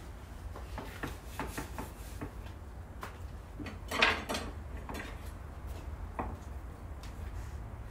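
Light knocks and taps of a knife and a gherkin on a wooden cutting board as the gherkin is handled and sliced, the loudest knock about four seconds in, over a low steady hum.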